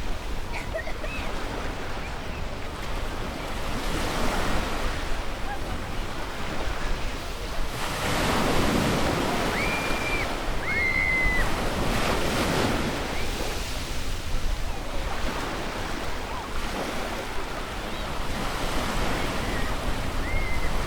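Ocean waves breaking on a beach, a steady wash of surf that swells in several larger surges, with wind rumbling on the microphone. A few short, high whistled notes sound over it.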